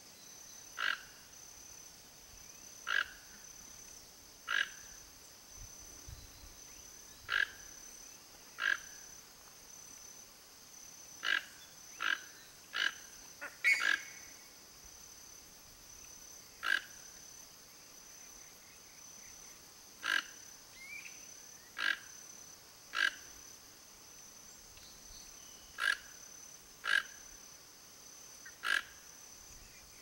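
Toco toucan giving short croaking calls, one every one to three seconds at uneven intervals. A steady high-pitched hum runs underneath.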